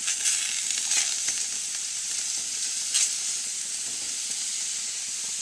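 Juicy tomato pieces, carrots and beets sizzling steadily on a grill at its highest heat, the tomato juice hissing on the hot surface. A few sharp clicks stand out near the start and about three seconds in.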